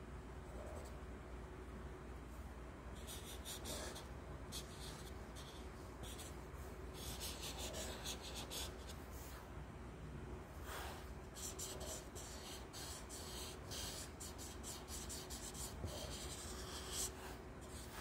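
Sharpie marker drawing on lined paper: quick short strokes scratching across the page, in clusters of rapid back-and-forth shading that start about three seconds in. A faint steady hum runs underneath.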